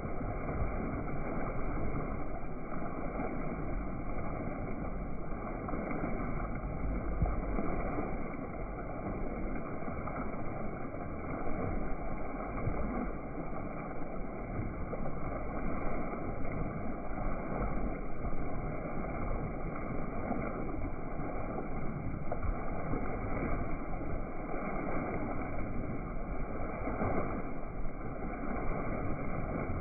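Steady rush of a boat underway, water washing along the hull over a low rumble, with no changes.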